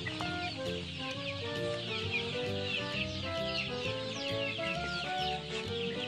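A large flock of young chicks peeping: many short, falling peeps overlapping without pause, over background music.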